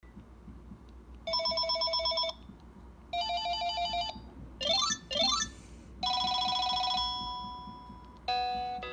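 Panasonic KX-TGA651 cordless phone handset playing several different electronic ringtones in turn: two short trilling rings, then two quick rising sweeps, then a longer tone that fades away, with a new tone starting near the end.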